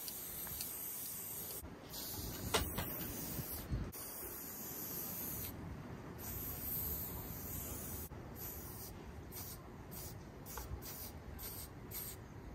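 Aerosol spray-paint cans hissing as paint is sprayed onto a concrete wall: long unbroken sprays at first, then short quick bursts about twice a second while outlines are drawn. A single sharp click about two and a half seconds in.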